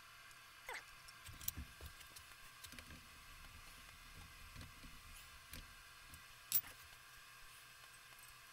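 Quiet, scattered metal clicks and taps of a small guard bracket being handled and fitted onto a lathe headstock. One brief squeak comes near the start, and one sharper click about two-thirds of the way through.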